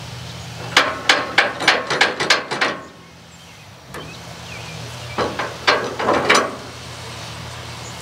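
A ratchet on the sawmill's log bed being worked in quick strokes to clamp the log down. It gives a run of about eight sharp clicks at roughly four a second, then a pause and four or five more, over a low steady hum.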